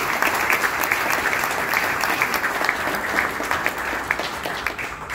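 Audience applauding, many hands clapping together, the clapping thinning out near the end.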